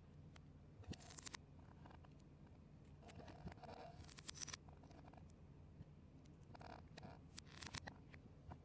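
Plastic Lego bricks and plates being handled and pressed together: faint scattered clicks and scrapes in a few short clusters, the sharpest about four and a half seconds in, over a low steady hum.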